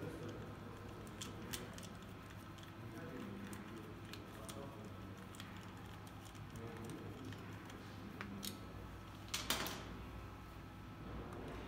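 Quiet, scattered light metallic clicks and ticks of a hand tool and compression-tester fittings being worked at the cylinder head of a Kia D4HB 2.2-litre turbodiesel during a cold compression test. One brief, louder rustling noise comes about nine and a half seconds in.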